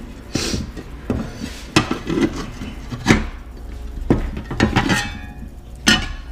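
Metal parts of an outboard recoil starter clinking and knocking as they are handled, a handful of separate sharp clinks spread over several seconds, while the rewind spring's end is lined up with the pin on the starter plate.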